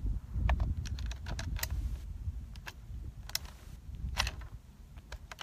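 Scattered sharp metallic clicks and rattles of a Thompson/Center Compass bolt-action rifle being readied to fire, the action and bolt being handled, with the two loudest clicks a little past the middle. Low wind rumble on the microphone underneath.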